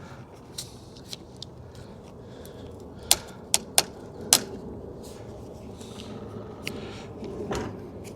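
A small pry tool working at the trim around a car door mirror, giving scattered sharp clicks and snaps, with four loud ones in quick succession about three to four seconds in.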